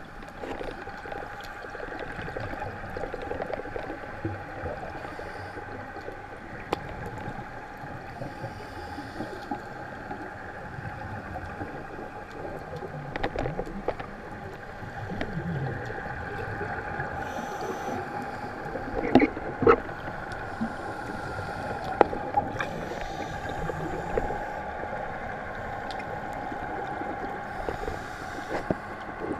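Underwater sound through a waterproof action-camera housing: a steady muffled hum with scuba divers' exhaled bubbles hissing and gurgling now and then. Scattered sharp clicks, the loudest a few around the middle.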